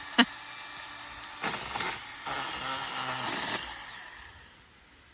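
Cordless DeWalt pole saw cutting branches: a sharp click just after the start, then the saw running in short stretches for about two seconds before fading out.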